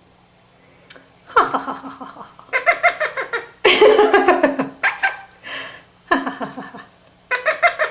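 Quaker parrot mimicking human laughter, a laugh it has newly picked up. It comes as several bursts of quick, high 'ha-ha-ha' pulses, starting about a second and a half in.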